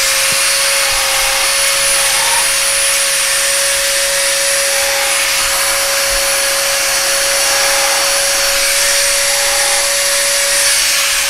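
Dremel-type rotary tool running at a steady high speed with a steady whine, polishing and smoothing a parrot's beak after trimming.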